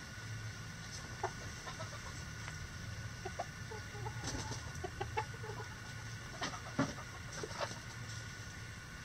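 Backyard hens clucking in short, scattered calls, with a few sharp clicks among them, the loudest about two-thirds of the way through.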